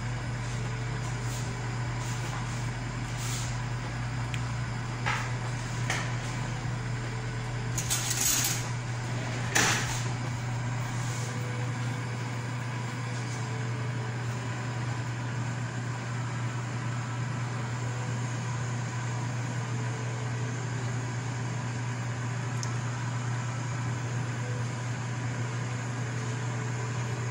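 Steady low mechanical hum, with a few short knocks and scrapes of a metal spoon against a nonstick frying pan as dry sugar is stirred over the heat; the loudest knocks come about eight and ten seconds in.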